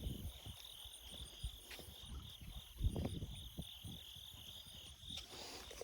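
Crickets trilling in a steady chorus, with a few soft low thumps of footsteps.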